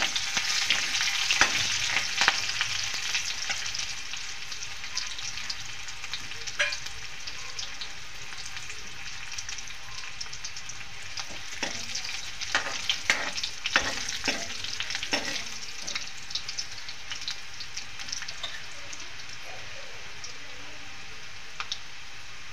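Garlic and curry leaves sizzling in hot oil in a kadhai during the tempering (phodni), stirred with a metal spoon that knocks and scrapes against the pan. The sizzle is loudest near the start and settles into a quieter, steady frying. The spoon knocks come in clusters about a second in and again around twelve to fifteen seconds in.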